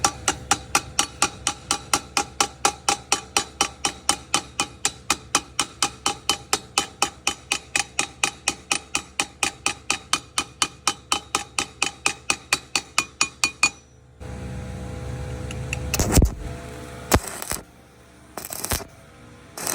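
Music with a fast, even ticking beat, about four a second, over held tones. About fourteen seconds in it stops abruptly, giving way to a low hum broken by a few loud, sharp knocks.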